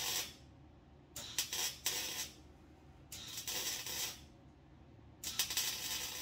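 Electric welder arc running in short bursts of about a second, four times, a crackling hiss each time: a new sheet-metal floor panel being tacked and stitch-welded in.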